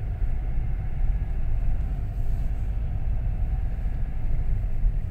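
Car being driven in slow traffic, heard from inside the cabin: a steady low rumble of engine and tyre noise.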